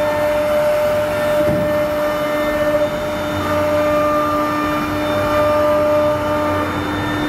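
Three-spindle CNC wood router running: a steady spindle whine over the noise of the router bit cutting into a curved wooden workpiece.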